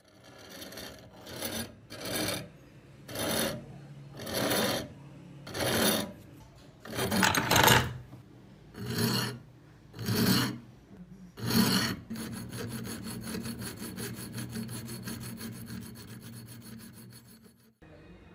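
A flat metal file rasping across the steel cutting edge of a hand adze blade to sharpen it. About ten slow, separate strokes, then a steadier, continuous rasp for the last several seconds.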